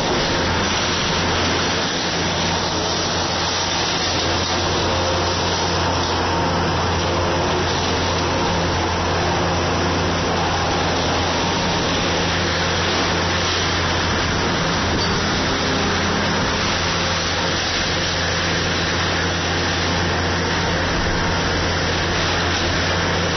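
Kobelco SK500 hydraulic excavator's diesel engine running steadily with a constant low hum, with no knocks or crashes of demolition.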